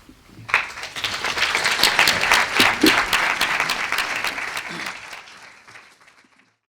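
Audience applauding, starting about half a second in, swelling, then fading out near the end.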